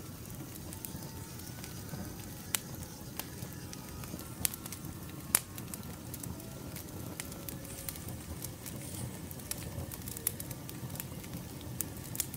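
Wood fire crackling, with scattered sharp pops over a steady low noise of the flames.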